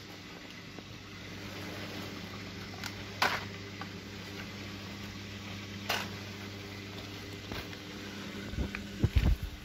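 Siemens Siwamat Perfecta SL front-loading washing machine on a delicates wash at 35 °C. A steady hum runs under a swish every few seconds, and a run of heavy low thuds comes near the end.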